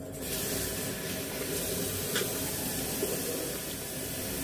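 A steady rushing hiss with a low hum underneath, starting abruptly.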